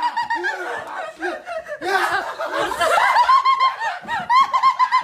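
High-pitched laughing, many short laughs in quick succession.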